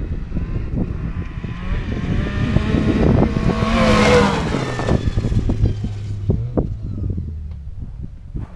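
Snowmobile engine passing close by: it grows louder to a peak about four seconds in, its pitch bending down as it goes past, then fades away. Wind buffets the microphone throughout.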